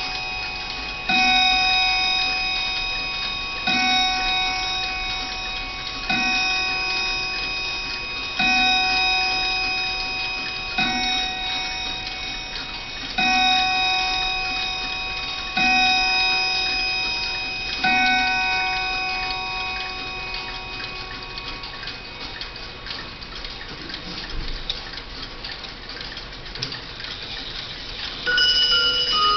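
Howard Miller 612-429 key-wind mantel clock striking nine o'clock: slow, evenly spaced hammer strikes about every two and a half seconds, each ringing on and dying away. The last stroke comes about 18 seconds in, and the movement's ticking is left as the ring fades. Near the end a new chime tune begins.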